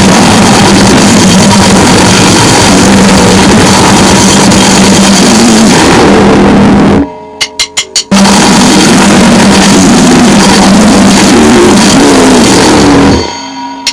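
Grindnoise/noisecore: a dense wall of distorted drums and guitar noise over a steady droning tone. It breaks off about seven seconds in for a quick run of sharp clicks, then crashes back in for a second blast that stops just before the end, where more clicks begin.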